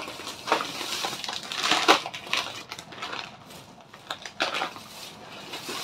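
Plastic food packets and a plastic shopping bag crinkling and rustling as they are handled, in irregular bursts, loudest about two seconds in.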